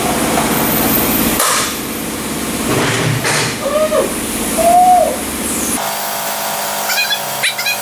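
A plastic wheel centre cap snapped onto an alloy wheel, one sharp click about a second and a half in, over steady shop background noise.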